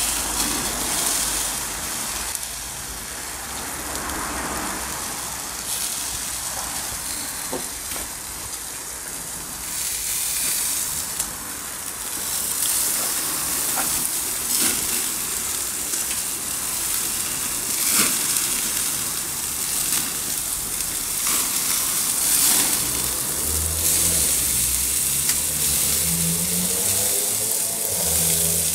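Food sizzling and frying steadily as it cooks, with a few sharp clicks here and there. A low hum joins in near the end.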